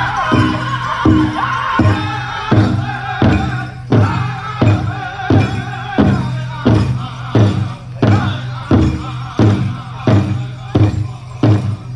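Powwow drum group singing a chicken dance song over a big drum struck in a steady beat. High voices carry strongly for the first few seconds, then the drumbeats stand out, about two a second.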